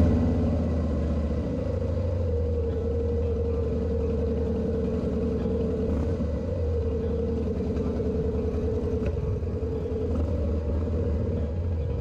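Motorcycle engine running at a steady cruising speed: an even engine drone over a low rumble, with no change in pitch.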